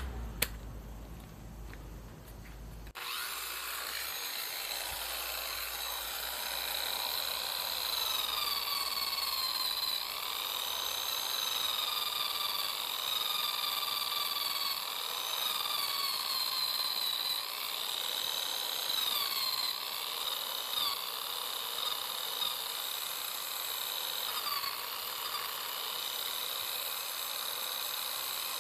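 Corded electric drill fitted with a sanding disc, starting up about three seconds in after a single sharp click. Its motor whine wavers up and down in pitch over a rough sanding hiss as the disc sands the underside of a bowling shoe.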